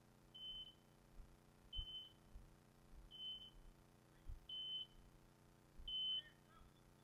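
Electronic beeper collar on an English setter giving a short, high single beep about every 1.3 seconds, five times: the point-mode signal that the dog has stopped and is holding a point.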